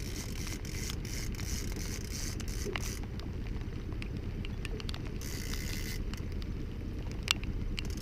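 Fishing boat underway at trolling speed: a steady low rumble from the motor and water, with scattered small clicks and rustles of handling noise and one sharper click near the end.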